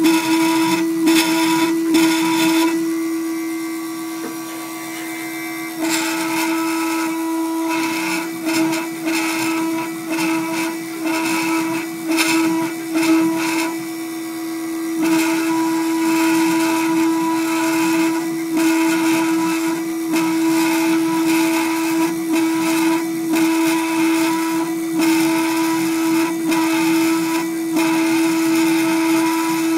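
Gravograph IS400 engraving machine cutting two-layer plastic: a steady high spindle whine with an irregular rasp from the cutter as it moves through the plastic. The cutting noise drops away for a few seconds about three seconds in, then comes back.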